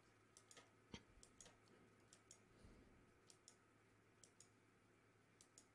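Near silence with about fifteen faint, irregular clicks of a computer mouse and keys being worked.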